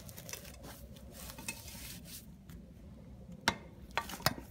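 Rustling of cut lavender being stuffed by hand into a copper still pipe, then a few sharp knocks about three and a half seconds in as a stick is rammed down the pipe to compress it.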